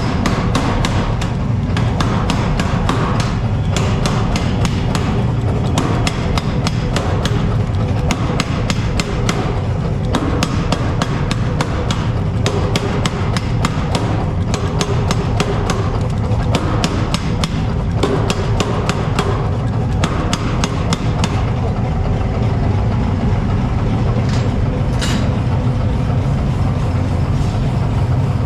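Rapid, repeated hammer blows on steel being forged, several strikes a second, thinning out about two-thirds of the way through, over a steady low hum.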